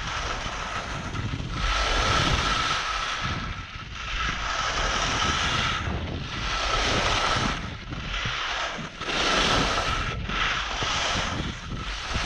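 Skis scraping and hissing over firm, wind-rippled snow in a run of turns, with five swells of hiss, one per turn, over the low rumble of wind on the microphone.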